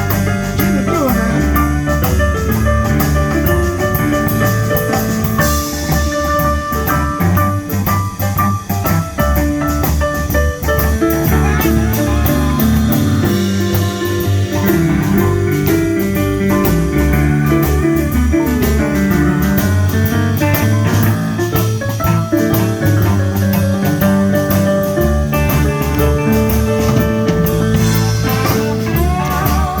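Live blues band playing an instrumental break: a lead solo over bass and a drum kit keeping a steady beat, with no singing.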